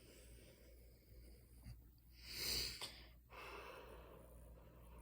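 A person's breathy snort or puff of air, loudest about halfway through, over a low background hiss.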